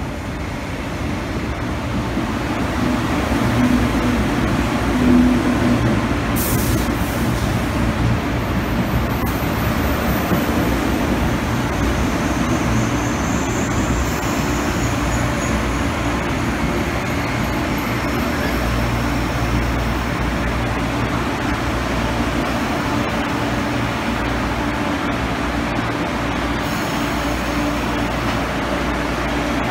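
MTR East Rail Line electric multiple unit (mid-life refurbished Metro-Cammell train) running into the platform and slowing to a stop, then standing with its on-board equipment humming steadily. Short high hisses come about seven seconds in and again near the end.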